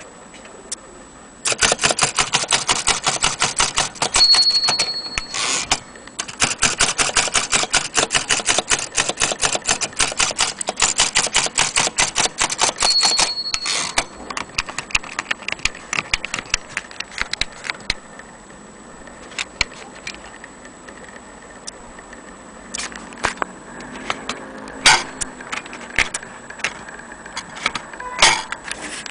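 Vintage portable Corona typewriter being typed on: a fast, even run of keystrokes starting about a second and a half in, with the carriage bell dinging briefly twice. After that come slower, scattered key strikes and clacks.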